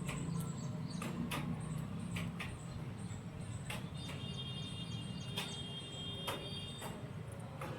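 Birds pecking at food, irregular sharp taps of beaks every half second or so over a low steady hum, with a faint high steady tone from about four to seven seconds in.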